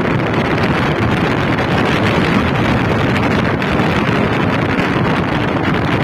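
Steady, loud wind rushing over the microphone of a moving vehicle, mixed with its engine and road noise.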